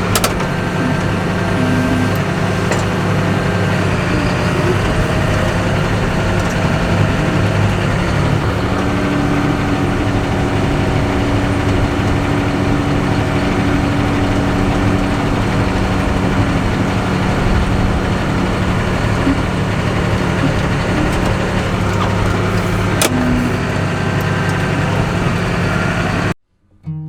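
Engine of a snow-pushing vehicle with a front blade, running steadily with a constant low drone. It cuts off abruptly near the end.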